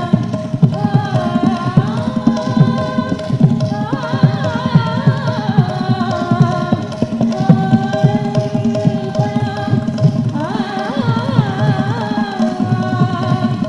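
Indian classical-style music: tabla drumming under an ornamented, gliding melody line that comes in phrases.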